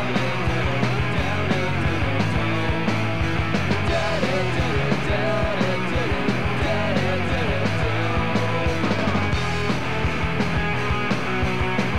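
Rock band music, an instrumental passage with no vocals: electric guitars over a steady drum beat.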